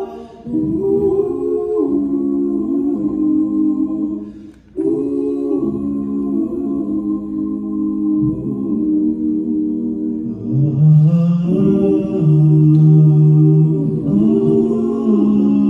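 Male vocal quartet singing a cappella into stage microphones, holding close-harmony chords. The sound dips briefly about a third of the way in, and a strong low bass part comes in about two-thirds of the way through.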